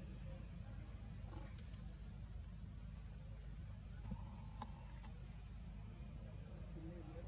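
Insects in the forest droning steadily with one unbroken high-pitched tone, over a faint low rumble.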